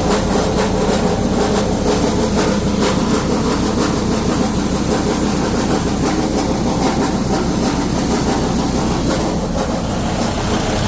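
Freightliner Cascadia diesel truck running, with a steady rapid metallic rattling from its SCR one-box emissions unit. The rattle is the sign that the box has broken inside: a loose metal plate and the filter coming apart.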